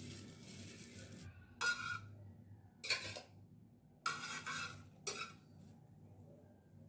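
A sizzle fades out in the first second, then a metal utensil knocks and scrapes against cookware four times, each stroke ringing briefly.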